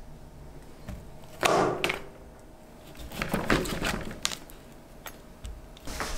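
Kitchen knife slicing through pepper-crusted meat on parchment paper over a wooden cutting board: a few cutting strokes with knocks of the blade on the board, the loudest about a second and a half in and several shorter ones around three to four seconds in.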